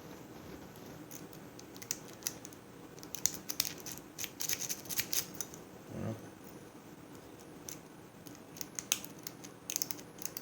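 A lock-picking rake scraping and clicking against the pins of an Al Mont ReyKey padlock in quick bursts as the lock is raked, without it opening yet. There is one dull knock about six seconds in.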